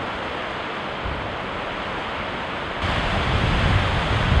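Steady rushing noise with wind buffeting the microphone, the low rumble growing stronger about three seconds in.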